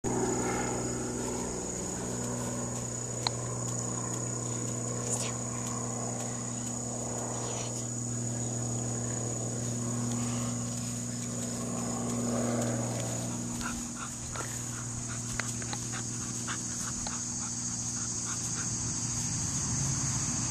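Great Dane puppy making small sounds as it squirms and plays, over a steady low hum.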